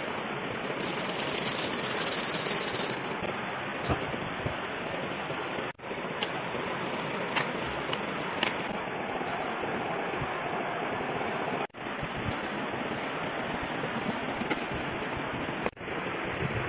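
Coconut-milk broth boiling hard in a wok over a wood fire: a steady, dense bubbling and crackling hiss that drops out briefly three times.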